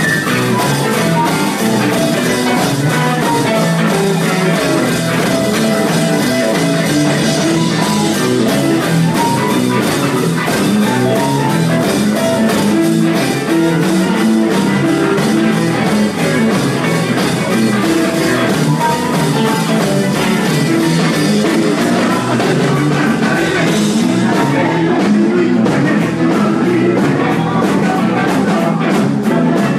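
Live rock band playing at full volume, with electric guitar and a drum kit keeping a steady beat.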